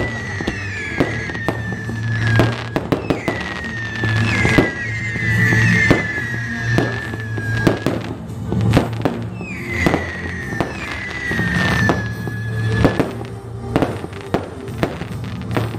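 Fireworks going off: a run of sharp bangs and crackles, with three long whistling tones that each slide slowly down in pitch over two to three seconds.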